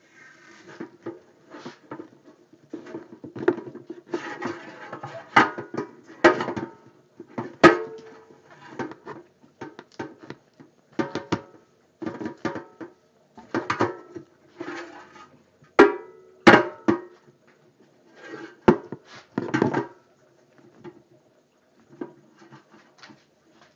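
A dryer vent brush on a rod being worked through a flexible plastic aquarium canister hose to scrub out built-up gunk. Irregular scraping, squeaking strokes come in stop-start bursts, with a few sharp knocks among them.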